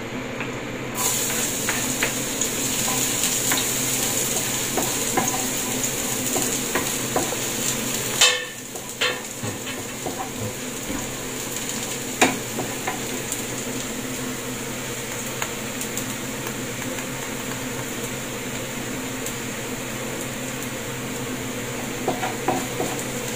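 Chopped garlic sizzling in hot olive oil in a nonstick frying pan; the sizzle starts suddenly about a second in as the garlic goes into the oil. A wooden spoon stirs and scrapes the pan throughout, with a couple of sharp knocks, the loudest about eight seconds in.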